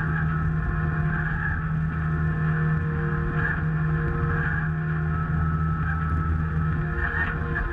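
Engine of a Logbullet miniforwarder running steadily as the small tracked machine drives along, an even drone with no change in speed.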